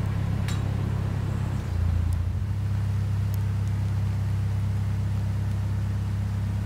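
Narrowboat's diesel engine idling with a steady low throb while the boat waits in the lock.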